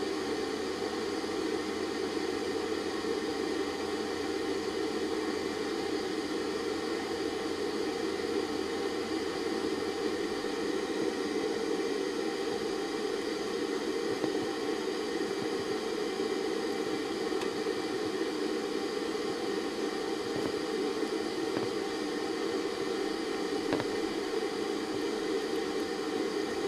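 Steady whirring hiss of a running machine, with a low hum underneath that stops about ten seconds in.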